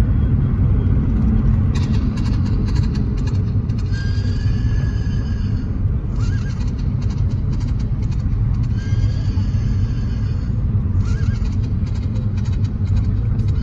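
Car driving, heard from inside the cabin: a steady low rumble of engine and road noise, with faint higher-pitched sounds coming and going over it.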